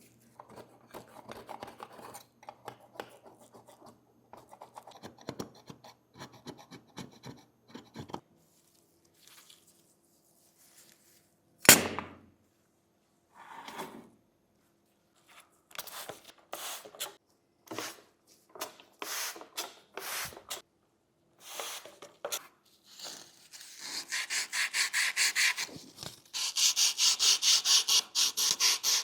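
Hand rubbing and scraping on a small workpiece: scattered short strokes, one sharp knock about twelve seconds in, then fast, even back-and-forth abrasive strokes at about four a second near the end.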